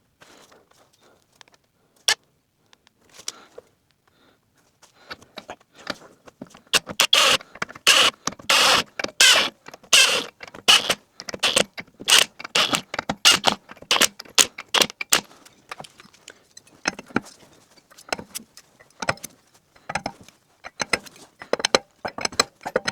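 Irregular clattering and rattling of objects being handled: a few scattered clicks at first, then a dense run of rattles from about six seconds in that eases off over the last several seconds.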